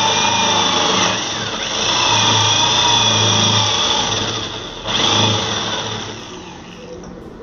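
Electric woodworking power tool running under load, cutting into wood, its motor whine shifting slightly in pitch. It stops briefly about five seconds in, runs again for a moment, then winds down near the end.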